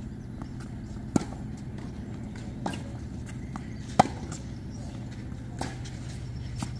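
Tennis rally: the ball pocks off rackets and the hard court, a sharp knock about every one and a half seconds, the loudest about four seconds in.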